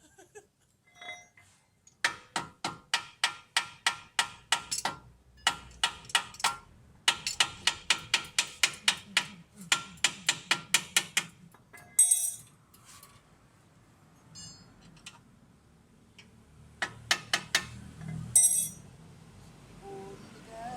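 A hammer striking steel suspension parts in runs of rapid ringing blows, about three to four a second. The blows stop about halfway through, and a few more come near the end.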